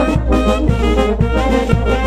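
Brass band playing dance music, with a steady drum beat about two strikes a second under the horns' melody.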